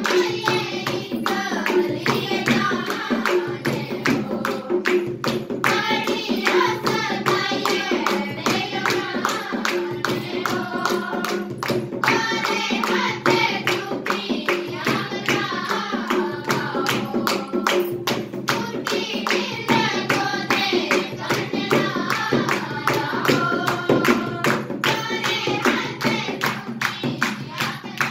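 A group of girls singing together to a dholak, the two-headed barrel drum played in a steady rhythm, with hand clapping on the beat.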